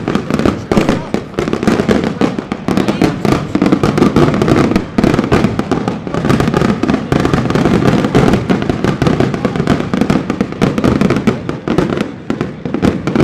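Loud crowd commotion at close range: many voices talking over one another, with rapid sharp clicks and knocks throughout.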